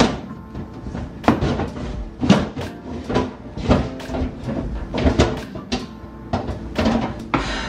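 Plastic refrigerator drawer knocking and clunking again and again as it is wiggled and pulled against the fridge. It is stuck and won't slide out, because the fridge door can't swing open far enough.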